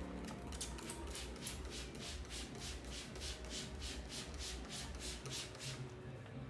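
Barber's hands rubbing briskly back and forth in a massage, an even run of about four hissing strokes a second.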